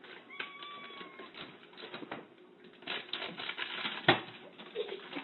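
Rapid clicking and rustling as a cat paws at things inside a wall cabinet, with one sharp knock about four seconds in as it pulls out a packet.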